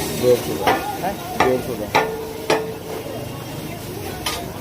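Hammer blows on metal, four strikes at a steady pace of roughly one every two-thirds of a second, then one more near the end, with a brief metallic ring after some of them.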